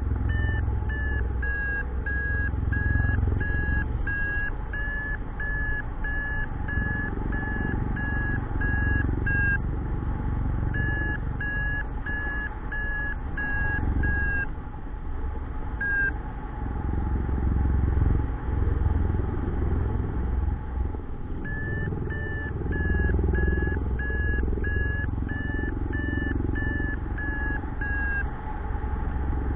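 Paragliding variometer beeping: a series of short, evenly spaced beeps, about one and a half a second, the climb tone that signals rising air, stopping for several seconds around the middle and starting again. Wind rushes steadily on the microphone underneath.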